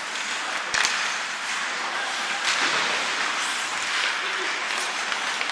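Ice hockey play in a rink: a steady hiss of skates on ice and crowd noise, with sharp clacks of stick and puck about a second in and again at about two and a half seconds.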